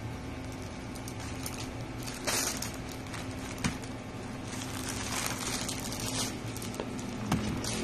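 Plastic mailer bag and bubble wrap rustling and crinkling as a parcel is handled and unwrapped, in irregular bursts, the loudest about two seconds in.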